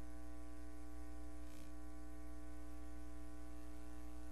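A steady electrical hum: one low, unchanging buzz with many overtones and no other sound.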